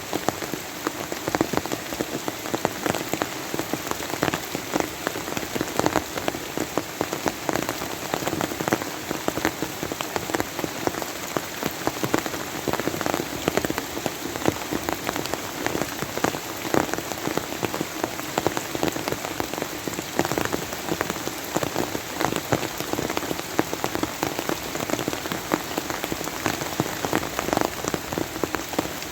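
Steady rain falling on a hard surface, with dense individual drop impacts pattering through a continuous hiss.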